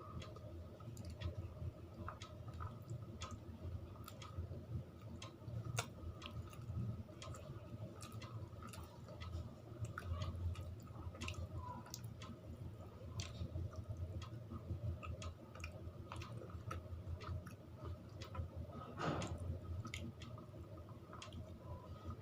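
A person chewing a mouthful of rice and curry, with frequent small wet clicks and smacks of the mouth at an irregular pace.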